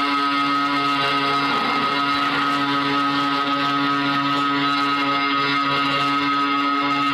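Motor scooter engine running at a steady speed, its hum holding one even pitch throughout.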